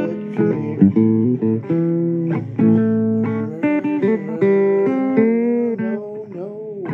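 Blues guitar playing an instrumental break: plucked single notes and chords, with bent notes gliding in pitch in the second half.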